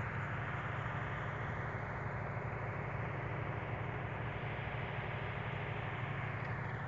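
1976 New Holland 1530's engine running steadily under way: an even low drone with a hiss of road and air noise, unchanging throughout.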